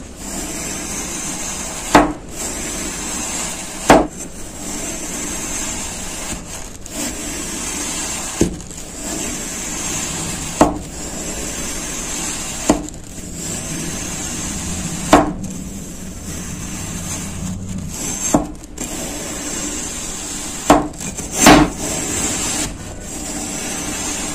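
Corrugated metal blade pushed down again and again through a block of kinetic sand, with a sharp knock at each cut, roughly every two seconds, over a steady hiss.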